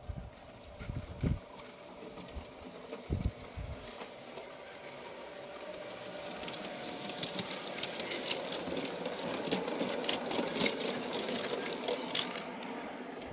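LGB G-scale model electric trains running on garden-railway track: motor whirr and wheels clicking over rail joints, growing louder as a train passes close, loudest about ten seconds in and easing off near the end. A few low thumps come in the first few seconds.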